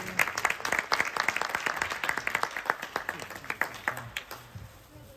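A small group applauding: many separate hand claps that thin out and die away about four seconds in.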